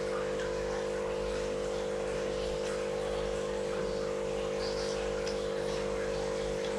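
A steady mechanical hum made of several fixed pitches, unchanging throughout, with a few faint clicks of spoons and bowls.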